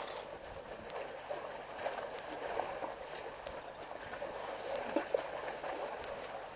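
Mud and water sloshing as elephant calves wallow in a muddy waterhole: a steady wet wash with scattered small splashes and clicks, and a couple of louder splashes about five seconds in.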